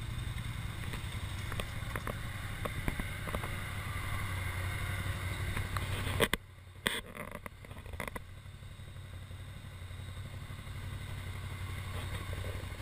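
ATV engines idling with a steady low hum over the rush of river rapids. A few sharp knocks come around six seconds in, after which the engine hum is quieter.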